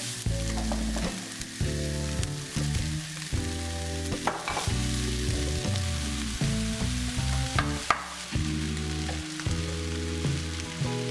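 Diced vegetables sizzling in oil in a nonstick frying pan as they are tossed and stirred, with two sharp knocks about four and eight seconds in. Soft background music plays underneath.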